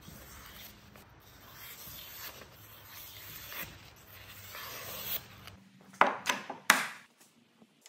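A freshly sharpened axe edge slicing through a sheet of paper to test its sharpness: a papery hiss in several strokes. About six seconds in come a few sharp knocks as the steel axe head is set down on the wooden workbench.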